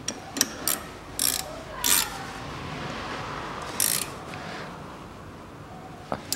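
A steel spanner clicking and rasping on the brake hose banjo bolt of a Mitsubishi Colt front brake caliper as the bolt is tightened. There are a few short clicks in the first second, then three longer rasps about a second apart, and a sharp click near the end.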